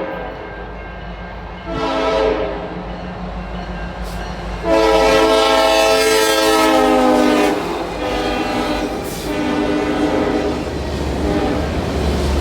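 Diesel freight locomotive horn sounding for a crossing: a short blast, then a long loud blast, then a shorter fainter one. The low rumble of the locomotive's engine grows near the end as the train draws close.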